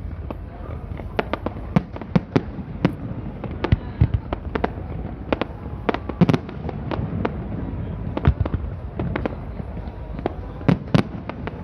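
Fireworks display: a rapid, irregular string of sharp bangs from bursting shells, several a second, some with a short echoing tail, over a steady low background rumble.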